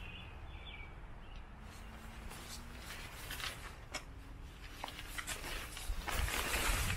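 Nylon rain fly of a pop-up hub tent rustling and swishing as it is pulled and draped over the tent frame, with a louder stretch of fabric noise about six seconds in, over a low rumble.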